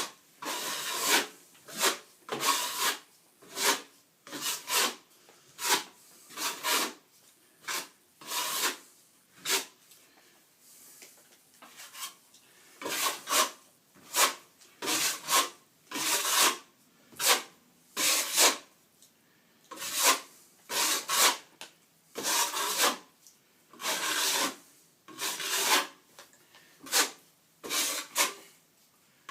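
Hand plastering trowel scraping and rubbing over a wall patch of setting plaster, in repeated strokes about one a second with a short pause near the middle. The plaster is being scraped back and smoothed as it firms up.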